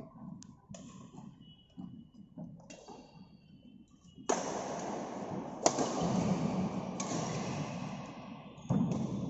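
Badminton rackets striking a shuttlecock, sharp taps every second or so during a rally. About four seconds in, a loud steady hiss-like noise sets in with one sharp crack in it, and it stops abruptly near the end.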